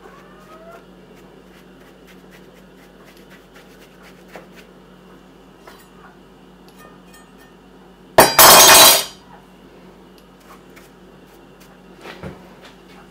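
Quiet strokes of a bristle brush cleaning a large bolete mushroom, heard as faint scattered ticks. About eight seconds in comes a loud clinking clatter under a second long, and a couple of lighter knocks follow near the end.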